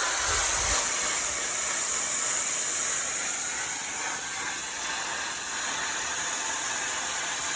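CNC plasma cutter torch hissing steadily as its arc cuts 13-gauge sheet steel, driven by compressed air.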